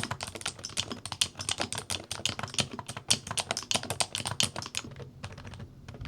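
Typing on a DAREU COOL68 65% mechanical keyboard with Hall effect magnetic switches: rapid, continuous keystrokes with a thocky sound, thinning out briefly near the end.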